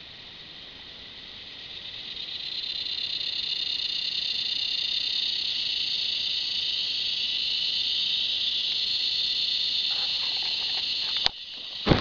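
Cicadas buzzing in a high, steady drone that swells over the first couple of seconds, then stops suddenly just before the end, followed by a few knocks.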